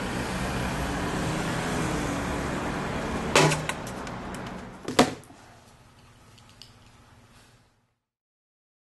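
Steady city traffic noise beside a street payphone. About three and a half seconds in, the handset is hung up on the payphone with a clatter of clicks, and a single sharp knock follows about a second and a half later. The street noise then fades away.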